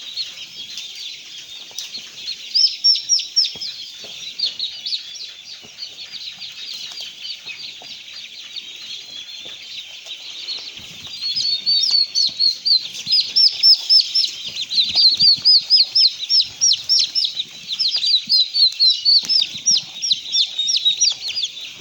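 Many chicks peeping constantly in short, high-pitched calls, growing louder and busier about halfway through.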